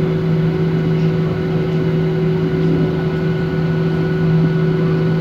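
Cabin noise inside a Boeing 737-800 taxiing after landing: its CFM56 jet engines running at idle together with the cabin air, heard over the wing as a steady drone with several held tones, the lowest one loudest.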